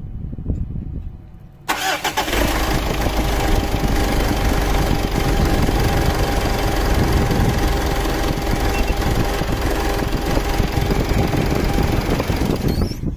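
Mitsubishi 4D56 four-cylinder diesel engine starting about two seconds in and idling steadily for about eleven seconds, then shut off near the end with a short whistle as it stops.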